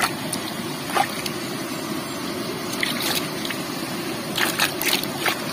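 Water sloshing and splashing in a plastic bucket as a hand stirs among live caught fish, with short splashes about a second in, around three seconds, and several near the end, over a steady rush of water.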